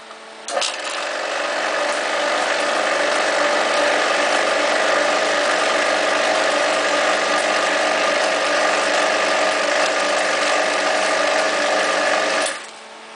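Sanomat Euro Favorit whipped cream machine running steadily while it dispenses whipped cream. It starts about half a second in and cuts off suddenly near the end.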